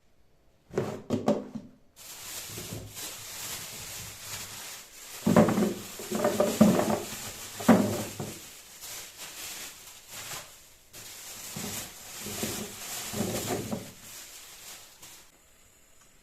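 Household items being handled and set down: a few clusters of knocks and clatter over a steady rustle, stopping shortly before the end.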